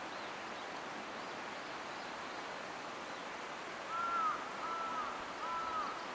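Steady outdoor hiss of wind and open-country ambience. About four seconds in, a bird gives three short whistled calls, each rising and falling, about two-thirds of a second apart.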